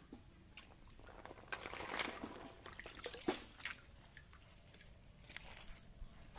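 Small splashes and drips of water as freshwater snails are tipped from a plastic crate into shallow pond water, clustered between about one and a half and three and a half seconds in, loudest around two and three seconds.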